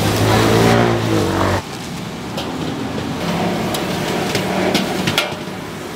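A motor vehicle's engine revving up close, its pitch rising, cut off abruptly about a second and a half in. After that, quieter street background with a few light clicks.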